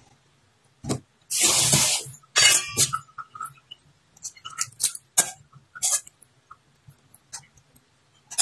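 Raw shrimp being handled and deveined over a metal pot, shells crackling and scissors and knife clinking against the pot: a string of short clicks and knocks, with two longer crackling rustles in the first three seconds.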